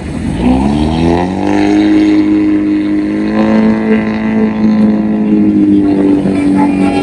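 A bus's multi-tone 'basuri' telolet air horn sounding a long held chord of several notes. Its pitch slides up over the first second or so, then holds, shifting slightly about three seconds in and again near six seconds.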